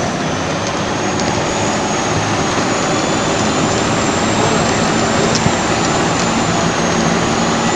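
Old Tata bus's turbocharged diesel engine running under way, its turbocharger whistling as a thin high tone that slowly climbs in pitch over the steady engine and road drone.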